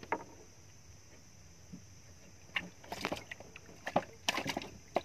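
Irregular knocks and light clatter of hands and fishing gear against a small wooden boat's hull, one near the start and then a quick cluster from about two and a half to four and a half seconds in.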